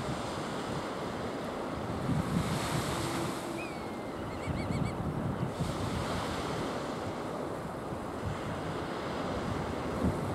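Surf washing on a sandy beach, with gusts of wind rumbling on the microphone. A few faint, short high chirps sound near the middle.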